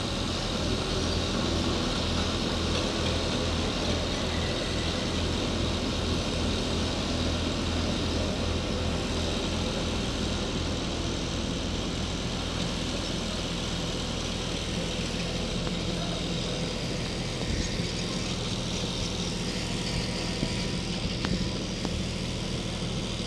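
Backhoe loader's diesel engine running steadily under work, with a few light knocks.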